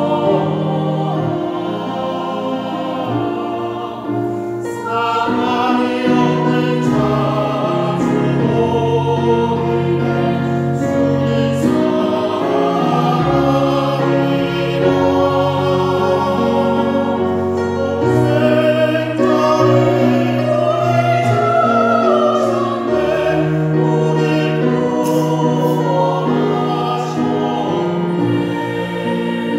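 Small mixed choir of men's and women's voices singing a slow hymn in Korean, in parts, with instrumental accompaniment.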